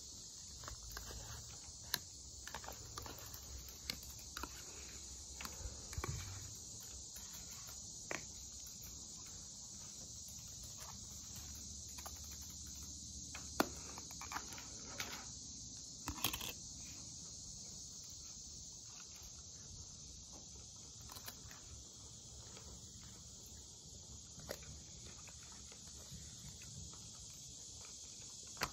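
Steady high chirring of insects, with a few sharp clicks and taps scattered through it.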